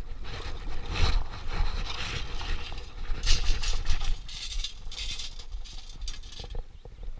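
Water draining out through the holes of a stainless steel sand scoop lifted from a lake, then wet stones and gravel rattling and scraping against the perforated metal as a hand sifts through them for a find, loudest in the middle stretch.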